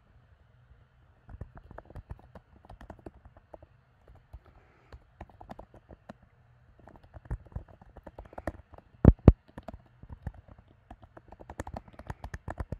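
Typing on a computer keyboard: irregular runs of key clicks with short pauses, and two sharper, louder key strikes about nine seconds in.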